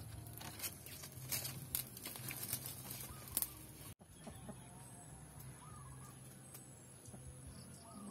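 Wood fire crackling under a cooking pot, with irregular sharp pops, for the first few seconds; after an abrupt cut, a quieter yard with chickens clucking softly.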